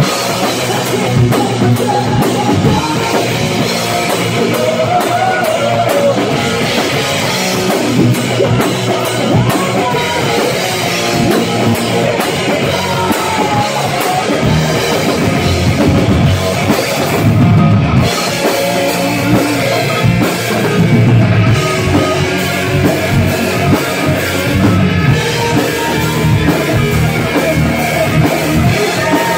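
Live heavy rock band playing loud: distorted electric guitars over a drum kit.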